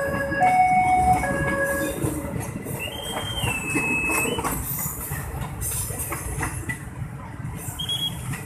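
Passenger train coaches rolling past over the rails with a steady rumble and wheel clatter. A level-crossing warning alarm alternates between two tones for the first two seconds, then stops. About three seconds in a high wheel squeal holds for over a second, and a shorter squeal comes near the end.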